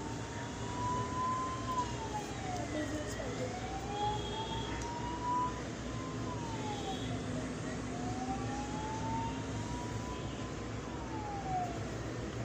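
A siren wailing: a single tone that rises slowly and then drops quickly, about three cycles of three to four seconds each, over a steady low hum.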